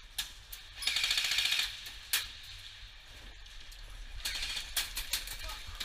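Airsoft guns firing rapid automatic bursts, one about a second in and another past the four-second mark, with sharp single cracks of shots or BB hits between them.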